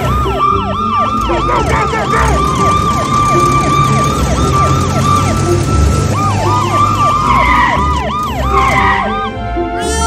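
Police siren sound effect in a fast yelp, its pitch rising and falling about four times a second and thinning briefly a little past halfway, over background music.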